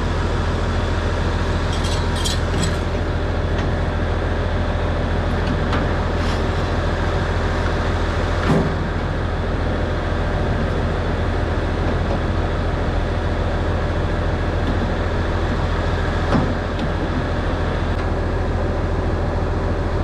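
Farm tractor engine idling steadily, with two short metal clanks, about eight and sixteen seconds in, as the elevator's PTO shaft is fitted to the tractor.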